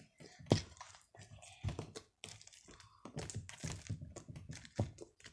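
Scattered handling noises: soft clicks, crinkles and knocks, with sharper knocks about half a second in, near two seconds and near the end.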